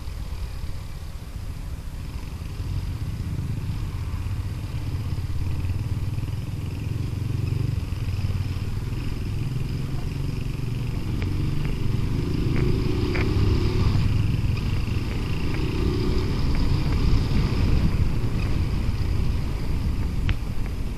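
Bajaj Rouser 180 motorcycle's single-cylinder engine running steadily under way, with a low rumble that grows a little louder about halfway through.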